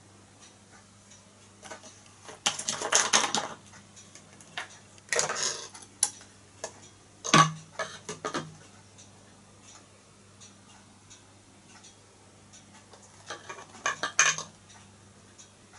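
Small glass spirit burner and its cap being handled on a tabletop: several short bursts of glassy clinks and knocks, the sharpest knock about seven seconds in. A faint steady ticking runs underneath.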